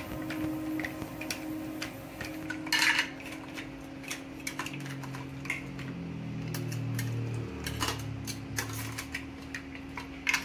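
Mussel shells clinking and clattering against a stainless steel pot and against each other as they are stirred with a wooden spatula and lifted out with tongs into a glass dish. Scattered sharp clicks throughout, loudest about three seconds in.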